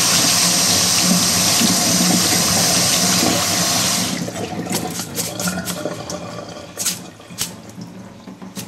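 Kitchen tap running hard onto rice in a metal mesh sieve as the rice is washed, shutting off about four seconds in. Then water drips and splashes into the stainless steel sink as the sieve is tipped and drained.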